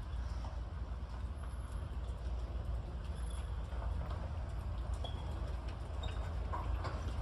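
A horse walking, its hooves clip-clopping faintly over a steady low rumble.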